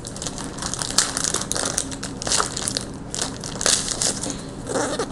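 Crinkly plastic packaging being crumpled and pulled open by hand: an uneven run of crackles and rustles, loudest in several bursts.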